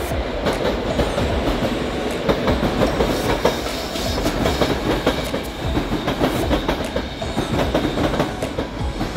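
A passenger train running through a station, its wheels clacking over the rail joints in a dense, continuous clatter.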